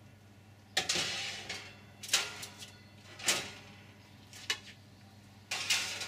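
Metal baking trays sliding onto the wire shelves of an electric oven: five separate scrapes and clanks, roughly one a second.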